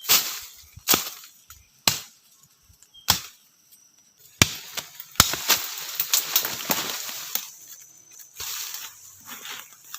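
Wood being chopped and broken: four sharp chops about a second apart, then a denser run of cracking and rustling from branches and leaves.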